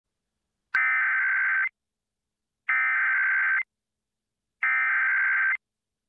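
EAS SAME header: three identical bursts of digital data tones, each just under a second long with about a second of silence between them, encoding the alert's header for a Child Abduction Emergency (AMBER Alert).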